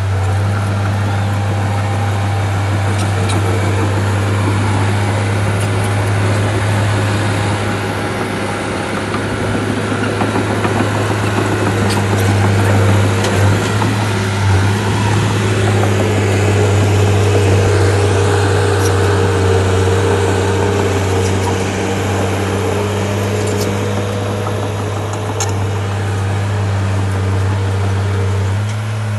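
Shantui bulldozer's diesel engine running steadily, working a little harder in the middle, with a few faint clicks.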